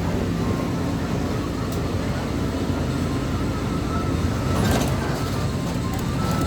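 Steady low engine and road rumble of a moving motor vehicle, with a brief noisier swell about three quarters of the way through.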